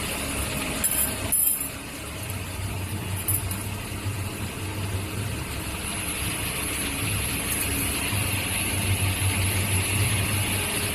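Steel ring bending and welding machine running with a steady low hum and hiss, with a brief sharp noise about a second in.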